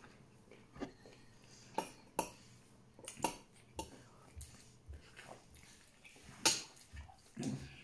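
Irregular light clicks and taps from eating rice and chicken by hand off a plate, about nine of them, the loudest about six and a half seconds in.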